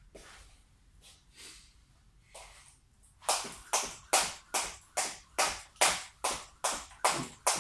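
Skipping rope on a rubber gym mat: a steady run of sharp slaps, about two and a half a second, begins about three seconds in as the rope strikes the floor on each turn.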